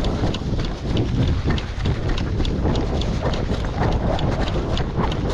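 Footsteps of a player moving quickly over rough ground, a steady run of crunching steps a few times a second, under heavy wind buffeting on the camera microphone.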